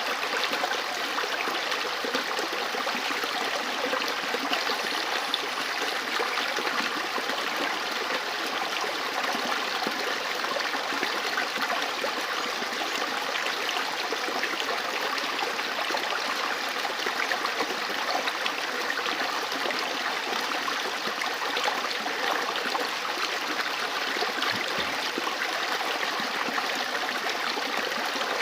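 River water running over stones, a steady babbling rush with fine splashing and gurgling.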